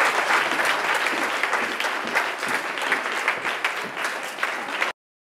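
Audience applauding, a dense crowd clapping that tapers slightly and then cuts off abruptly near the end.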